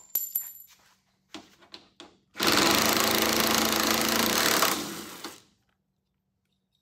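Cordless impact driver run in one burst of about two seconds at a fastener in a race car's plastic front valance, after a few handling clicks.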